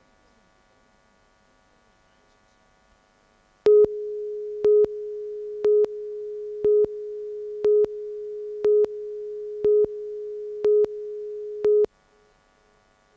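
Broadcast station ident tone on a news tape: a steady low electronic tone with a short, louder, higher-pitched beep about once a second, nine beeps in all. It starts about four seconds in and cuts off suddenly about twelve seconds in, with near silence and faint hum before and after.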